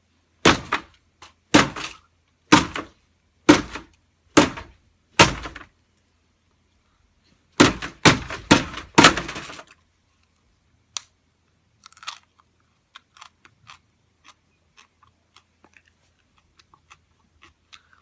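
Loud, crisp crunching of popcorn being chewed, about one crunch a second for several seconds, then a quicker run of crunches, fading to faint scattered crackles and clicks.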